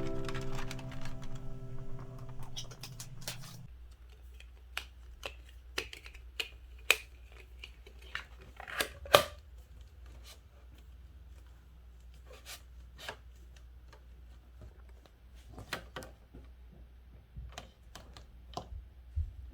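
Background music ends about four seconds in, followed by scattered light clicks and taps over a low steady hum, with a sharper click near the middle.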